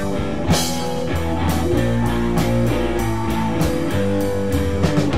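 Prog rock band playing an instrumental passage: guitar over a drum kit keeping a steady beat.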